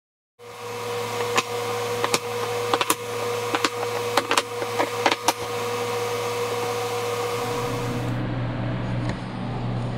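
Steady machine hum, with a dozen or so sharp clacks of wooden end-grain cutting-board strips being handled and set against each other in the first half. The hum drops lower and grows louder near the end.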